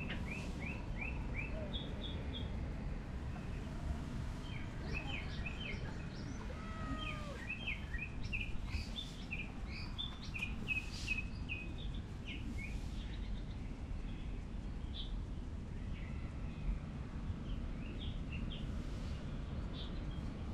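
Small birds chirping, a scatter of short, quick, high chirps that thin out in the last third, over a steady low outdoor background noise.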